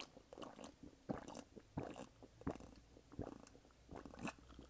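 Close-miked eating mouth sounds: wet smacks and swallows, about six separate ones at irregular intervals.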